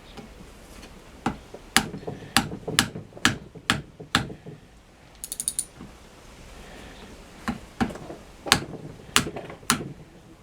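Ratchet wrench tightening the flywheel nut on a Mercury 9.9 outboard, giving a series of sharp, irregular clicks, with a quick run of fine ratchet ticks about halfway through.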